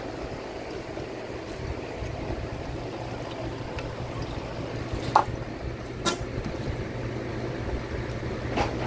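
Steady low machine hum, with a few sharp knocks from the demolition site, the loudest about five seconds in.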